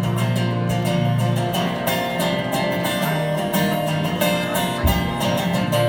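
Solo acoustic guitar strumming the closing instrumental bars of a country-folk song, with sustained chords and no singing.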